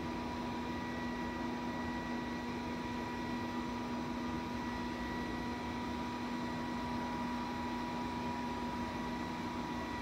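Robot vacuum cleaner running: a steady motor whir with a constant hum that does not change.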